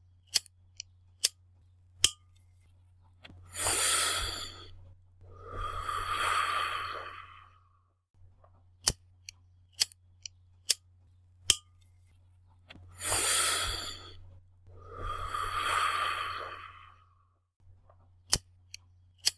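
A lighter clicking, a few sharp clicks at a time, in three separate groups. Between the groups come two rounds of a long breathy draw on a cigarette followed by a long exhale of smoke.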